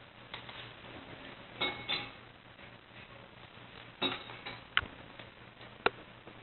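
A cat's paw knocking against its water bowl while scooping water to drink: a few sharp clinks, two close together early and three more spread over the second half, the last two the loudest.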